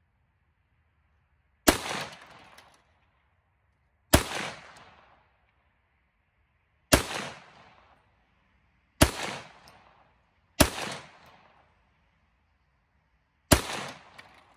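Six single rifle shots from a Black Rain .300 Blackout semi-automatic rifle firing 150-grain Aguila rounds, spaced unevenly about one and a half to three seconds apart. Each shot has a sharp crack followed by about a second of echo.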